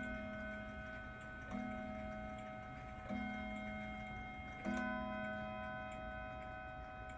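Howard Miller regulator wall clock striking six o'clock on its gong: a stroke about every second and a half, each ringing on and slowly fading, with the clock's steady tick underneath.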